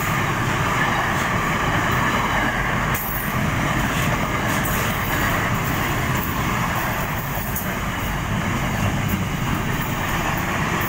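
Intermodal freight train's container wagons rolling past close by: a steady, loud rumble of steel wheels on the rails.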